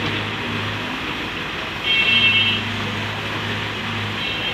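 Diesel engines of an excavator and a Tata dump truck running steadily. A horn sounds briefly about two seconds in and again near the end.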